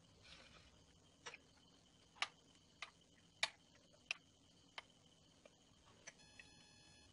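Metal spoon clinking against glass bowls and dessert cups while thick fruit custard is spooned out: about eight light, uneven clinks, the two loudest about two and three and a half seconds in.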